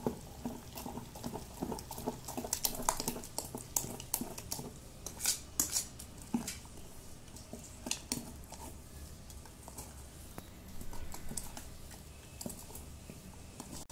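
Spoon stirring thick adai dosa batter with chopped onions and herbs in a stainless steel bowl: irregular clinks and scrapes of the utensil against the bowl's sides, with the wet squish of the batter.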